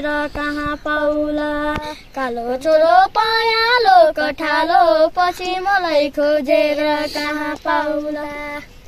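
Young children singing a song unaccompanied, with long held notes and wavering pitch and a short break about two seconds in.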